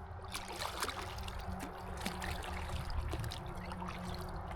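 Small water splashes and trickling drips close to the microphone, irregular throughout, over a steady low wind rumble.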